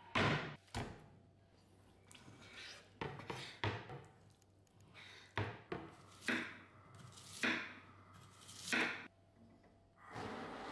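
A cutting board set down on a wooden table with a thunk, then a kitchen knife cutting an onion on the board in a series of separate strokes. Near the end comes a hiss as a gas stove burner is lit.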